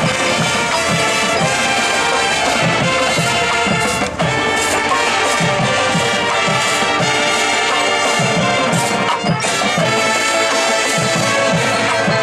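Marching band playing its field show: brass with percussion beneath, a steady pulse under it, and a brief break in the sound about four seconds in.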